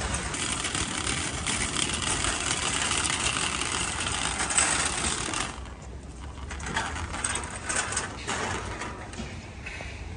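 Metal shopping cart rolling and rattling as it is pushed over pavement. The steady clatter drops off about halfway through, leaving scattered rattles and clicks.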